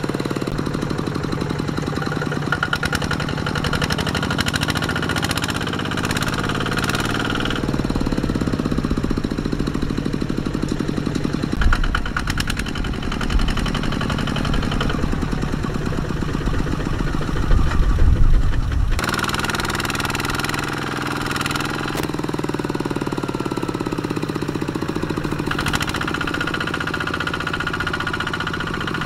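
Kubota RT155 walking tractor's single-cylinder diesel chugging hard under load as its lugged wheels churn through deep mud, louder and deeper for a couple of seconds about two-thirds of the way in before settling back.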